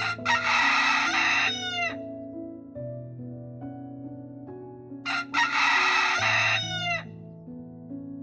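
Rooster crowing twice, each crow about two seconds long and trailing off in a falling pitch, over a soft background music track.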